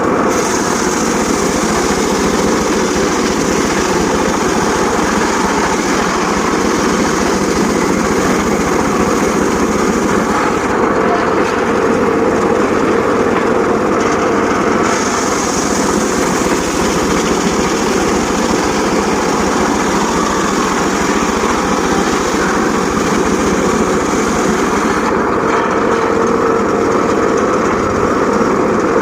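A homemade engine-driven circular saw rig runs steadily while sawing teak wood. A high hiss comes and goes in long stretches, dropping out twice for about four seconds, and a steadier whine takes its place each time.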